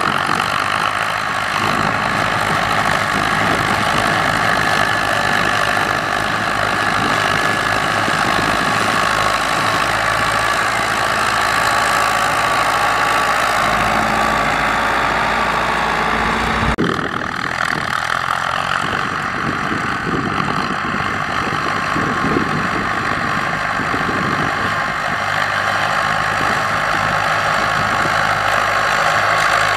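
Ford 6600 tractors' three-cylinder diesel engines running steadily as they push soil with front blades. The sound changes abruptly a little over halfway through.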